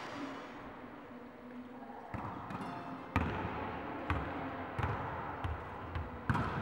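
Volleyball being hit during training: about half a dozen sharp smacks of hands on the ball and the ball striking the court, starting about two seconds in, each echoing in the large sports hall.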